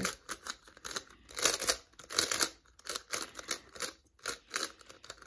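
Plastic pieces of a GAN Skewb M magnetic twisty puzzle clacking and scraping as it is turned by hand, in a quick, irregular run of turns with a brief pause about four seconds in.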